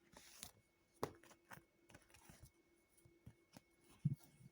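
Faint handling noise in a quiet small room: scattered small clicks and rustles, with a soft low thump near the end.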